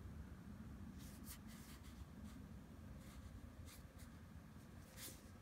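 Near silence with faint handling noise: a few soft scratchy rubs as a plastic caulk tube is turned over in the hand.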